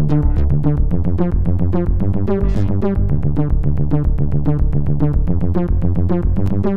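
Electronic background music with a quick, even beat and a steady bass line.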